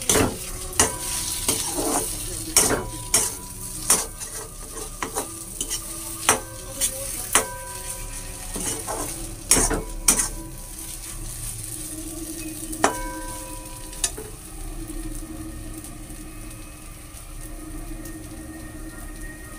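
Slotted metal spoon stirring and scraping semolina halwa in a wok over a gas flame, with repeated sharp clanks of the spoon against the pan that ring briefly, over a steady sizzle of ghee. The clanks thin out after about fourteen seconds, leaving mostly the sizzle.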